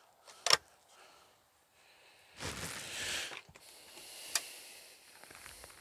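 Handling of an overhead cabinet door: a short click, about a second of rustling, then a sharp click as the lift-up door is opened.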